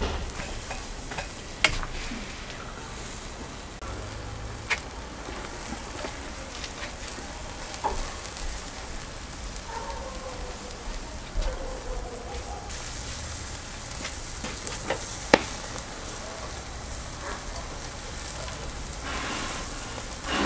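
Food frying and sizzling: a steady hiss with a few sharp pops.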